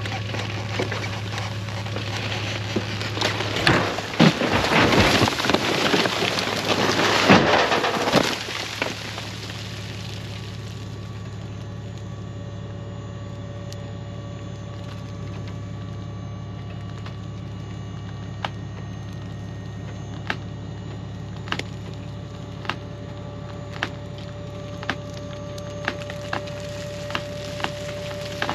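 A dump trailer tipping out a load of cut log chunks. About four seconds in, wood slides and tumbles out of the bed with a crashing, cracking rush that lasts several seconds. A steady low hum runs underneath, with scattered light clicks after the load has come out.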